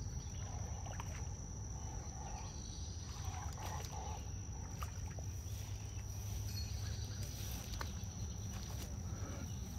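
Outdoor ambience: insects keep up a steady, unbroken high trill over a low rumble, with a few faint short chirps.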